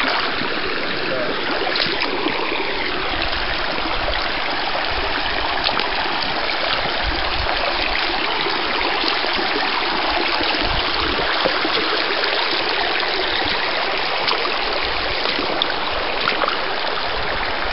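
Rain-swollen creek running high, a steady rush of flowing water.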